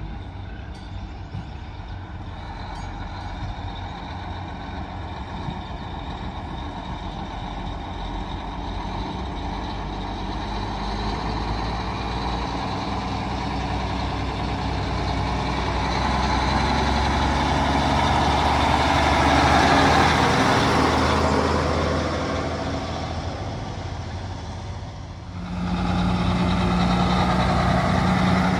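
Big diesel truck tractors driving slowly past in a parade line. The engine rumble grows to its loudest about twenty seconds in as a tractor hauling a lowboy trailer goes by. About three seconds before the end a steady horn blast starts as another tractor rolls past.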